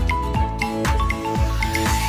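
Background music with a steady beat and a bright held melody.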